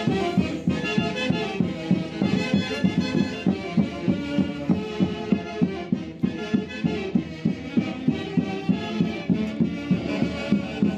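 Andean típica orchestra playing festive Santiago music, with violin and wind instruments over a steady beat of about two strokes a second.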